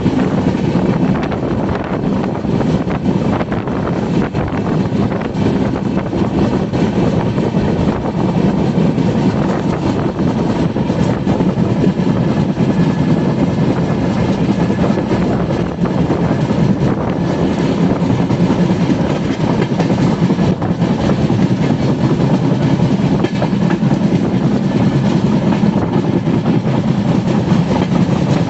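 Moving train running along the track: a steady rumble of wheels on rails that does not let up.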